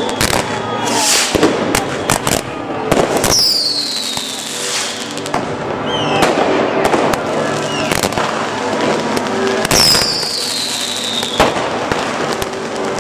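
Fireworks going off in a rapid string of bangs and crackles, with two long whistles falling in pitch about three and ten seconds in.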